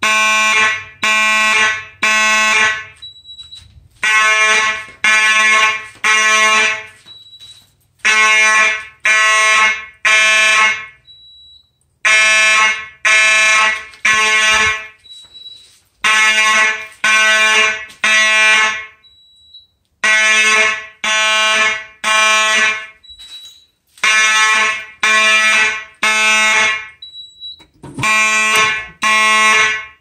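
Electromechanical fire alarm horns sounding the code-3 temporal evacuation pattern: three buzzy blasts of about half a second each, then a pause of about a second and a half, repeating every four seconds.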